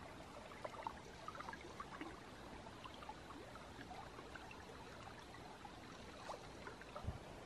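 Faint lapping and trickling of lake water at the shore: a soft steady hiss with many small irregular splashes.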